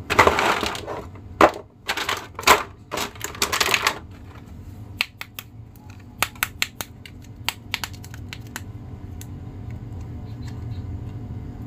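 Thin clear plastic packaging tray crinkling and crackling in several loud bursts as an action figure is pulled out of it, then scattered light clicks and taps of the plastic figure against the tray.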